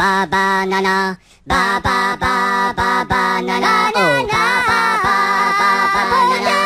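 High-pitched Minion-style voices singing gibberish, a short syllable chanted about three times a second, with a brief break about a second in and a sliding, falling note about four seconds in.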